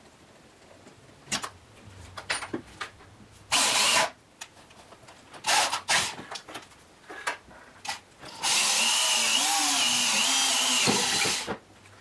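Handheld power drill boring a positive-stop hole in a wooden sled's angle guide: a short burst about three and a half seconds in, then a steady run of about three seconds near the end, its pitch wavering as the bit cuts. Light knocks and handling clicks come between.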